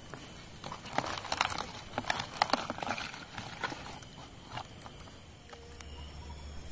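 Light clicks, taps and scratching of fingers and palm weevils' clawed legs against a clear plastic tub as the beetles are scooped up by hand, busiest between about one and four seconds in, then thinning out.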